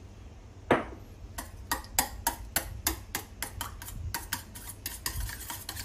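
Metal chopsticks clicking against a stainless-steel bowl while mashing cubes of fermented bean curd in their brine. One louder clink comes early, then a quick, steady run of taps, about five or six a second.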